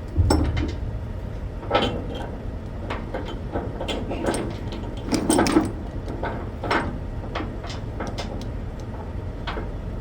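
Load-securement chain being hooked up: irregular metallic clanks and rattles, several of them louder knocks, over a steady low rumble.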